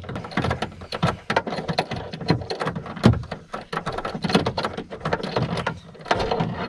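Rapid, irregular metallic clicking and scraping inside a car door as a long 13 mm bolt is spun out by hand with a spark-plug-style socket tool.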